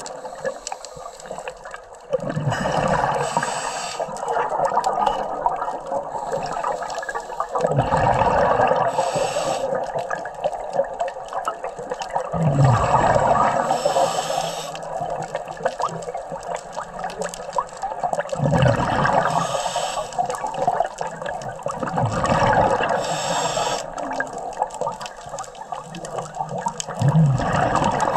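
A scuba diver breathing through an open-circuit regulator, with a hiss on each inhale and a burst of bubbling on each exhale. There is a full breath about every five seconds.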